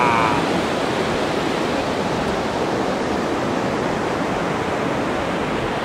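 Steady, even rush of ocean surf breaking on a beach.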